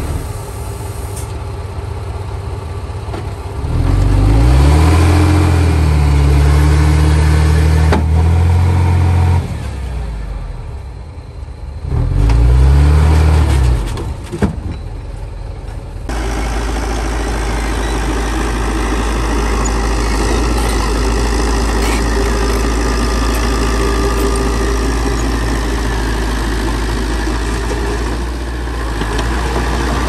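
Komatsu D31P bulldozer's diesel engine working. It revs up about four seconds in and holds high for several seconds, then drops back. It revs again briefly around twelve seconds, and after an abrupt change at about sixteen seconds it settles into a steady low running drone.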